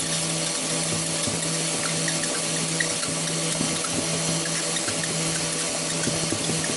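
Homemade box shredder with a power tool spinning a blade, running steadily with a constant hum and hiss, while a plastic toy apple tumbles against the blade and the box walls, making light irregular knocks.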